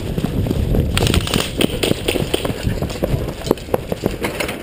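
Airsoft guns firing nearby: a fast, irregular crackle of shots, with a few sharper cracks near the end.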